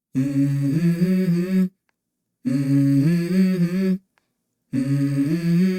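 A wordless hummed vocal phrase in the background music, sung three times with short silent gaps between, each stepping up in pitch partway through.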